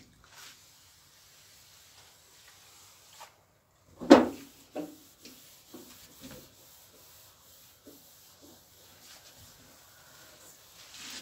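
Wiping a repaired truck body panel down with degreaser before priming: faint rubbing, with one sharp knock about four seconds in and a few lighter taps after it.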